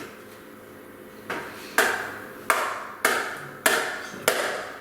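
A series of sharp knocks or taps, each with a short ringing tail, repeating about every half second from about a second in.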